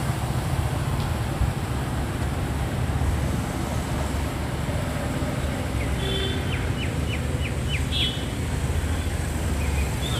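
Steady low rumble of road traffic, with a bird chirping a quick run of about six short rising notes some six seconds in and once more near the end.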